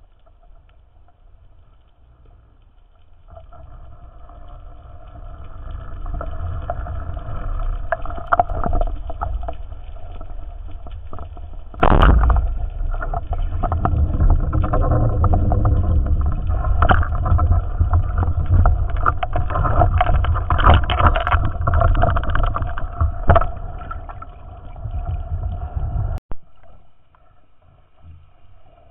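Motorboat engine and propeller heard underwater: a droning hum with a low rumble that swells over a few seconds and then holds. A single sharp snap about twelve seconds in fits a speargun being fired. The drone cuts off suddenly near the end.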